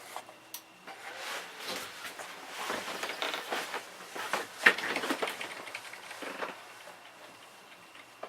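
Handling noise during PC assembly: an irregular run of clicks, taps and rustles, dying away about seven seconds in.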